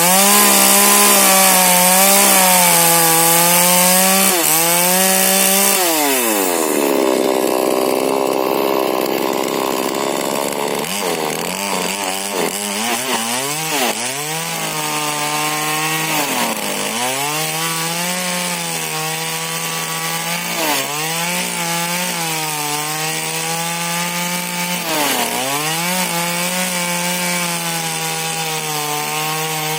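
Two-stroke 40cc Husqvarna chainsaw with a modified exhaust running at full throttle while cutting wood. Its pitch sags repeatedly as the chain loads up in the cut, dropping deepest about six seconds in and staying low for several seconds before it climbs back.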